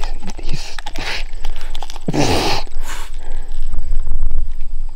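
A dog barking and whining in a few short outbursts, the loudest and longest about two seconds in.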